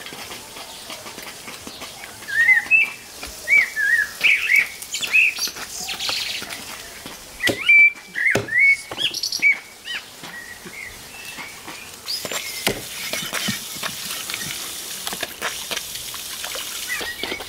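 Songbirds chirping and singing over and over, with several sharp knocks from cutting a large fish on a wooden chopping stump, most of them bunched about halfway through.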